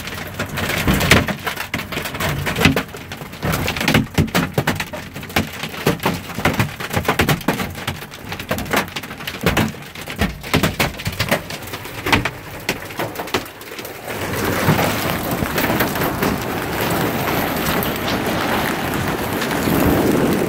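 Hailstones striking hard surfaces in a rapid, irregular patter of sharp cracks. About two-thirds of the way through, this thickens into a dense, steady downpour of hail and rain.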